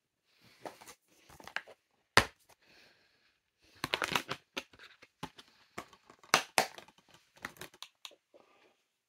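Handling noise: irregular rustling and crinkling with sharp clicks and knocks, the loudest click about two seconds in.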